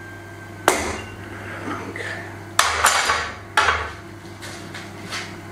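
Metal clamps being taken off and set down, giving a few sharp clanks and knocks, three of them close together in the middle, over a steady low hum.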